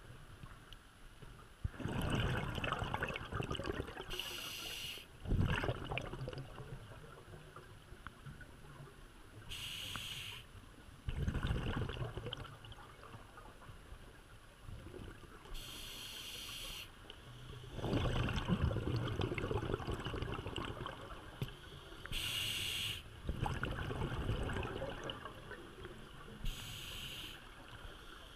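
Scuba diver breathing through a regulator underwater: a short hiss on each inhale, about every six seconds, and a longer burst of bubbling exhaust on each exhale.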